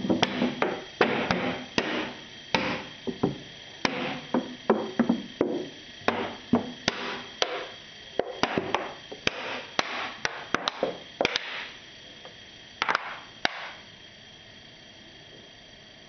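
Plastic PET soda bottle crackling and popping irregularly as the refrigeration-compressor vacuum pump sucks it flat. The cracks come in quick clusters, thin out after about eleven seconds and stop after two last pops near the end, over a faint steady tone from the running compressor.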